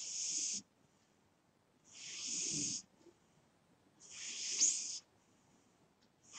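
Domestic cat snoring in its sleep: a hissy, wheezy breath about every two seconds, each lasting under a second, the third with a short whistle.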